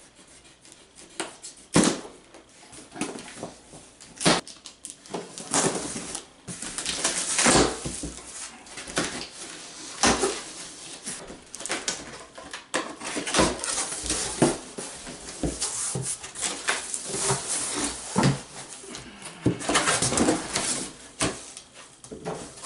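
A cardboard box being cut open with a knife: the blade slicing through packing tape and cardboard, with flaps scraping and rustling and irregular knocks. There are a few longer tearing, scraping stretches of a second or two.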